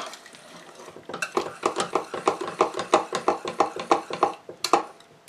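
Wire whisk beating thick lemon pie filling in a stainless steel saucepan, the wires clicking against the pot in a quick, even rhythm of about five strokes a second. The whisking starts about a second in and stops shortly before the end.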